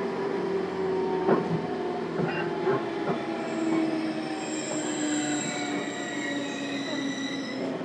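Cabin sound of a JR Kyushu 415 series 1500 electric train motor car running on the rails: a steady motor and gear hum that slowly falls in pitch, a few sharp rail-joint clicks in the first three seconds, and a thin high wheel squeal joining about halfway through.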